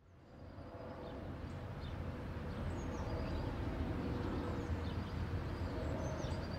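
Rural outdoor ambience fading in: a steady low rumble with several short bird chirps scattered over it.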